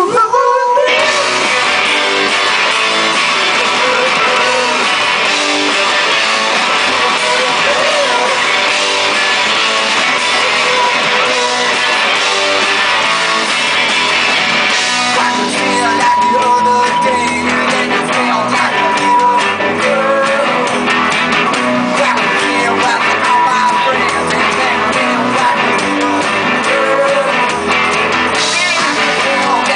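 Rock band playing live: electric guitars and a drum kit come in together all at once, then keep up a dense, loud rock groove.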